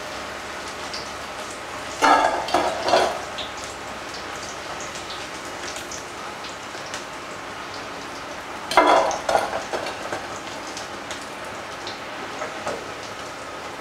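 Cornflour-coated chickpeas deep-frying in hot oil in a kadai, a steady sizzle, while a slotted metal spoon stirs through them. The stirring is louder in two short spells, about two seconds in and again around nine seconds.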